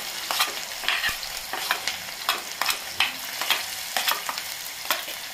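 Chopped onions sizzling in hot oil in a steel kadhai as they are pushed in off a steel plate with a metal spoon. Repeated sharp clinks and scrapes of the spoon on the plate sound over a steady sizzle.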